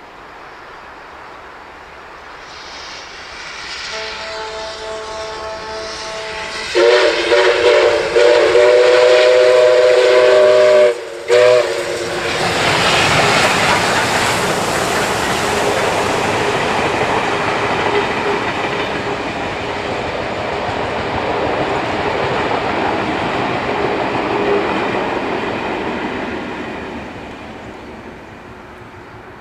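Approaching steam train led by NSW 59 class locomotive 5917 sounding its whistle, a chord of several steady tones, faintly at first and then one long loud blast of about four seconds. The locomotive and its carriages then pass close by, their wheels clattering on the rails, and the noise fades away near the end.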